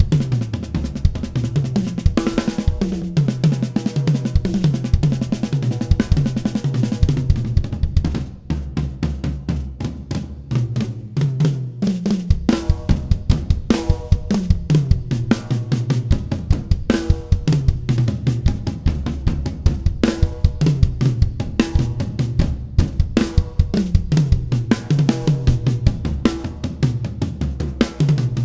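A drum kit fitted with Williams double-ply clear oil target-dot heads being played: a groove of kick, snare, hi-hat and cymbals, broken every few seconds by fills that run down the toms from high to low. The oil-damped double-ply heads give a thick, tight tom tone with a short tail.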